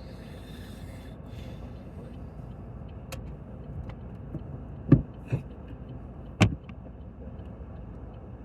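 Steady low road rumble inside a moving car, with a faint hiss in the first second or so. A little past halfway come three short, sharp knocks, the last the loudest.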